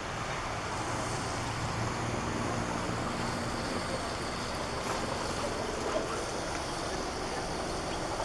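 Distant firefighting helicopter heard as a steady, even rumble, with a faint low hum through the first few seconds.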